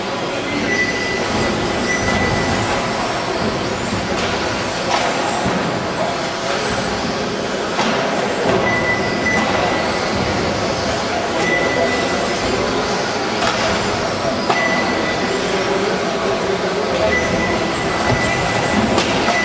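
Several 1/10-scale electric 2WD RC buggies (Team Associated B4) racing, a steady mix of motor whine and tyre noise on the track, with a few short knocks and a thin high whine that comes and goes.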